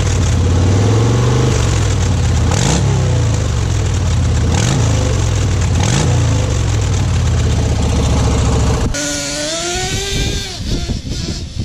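A deep engine sound runs steadily for about nine seconds, rising briefly in pitch three times. Then it cuts to the high-pitched two-stroke whine of a Traxxas T-Maxx 3.3 nitro engine, revving up and falling back as the truck drives.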